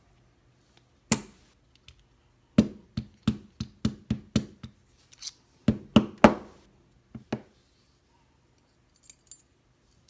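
Sharp metal taps and clicks from a Mul-T-Lock Garrison lock cylinder being knocked and worked to free a pin stack during disassembly. There is a run of about eight quick taps at roughly four a second, then a few louder ones and a last faint pair near the end.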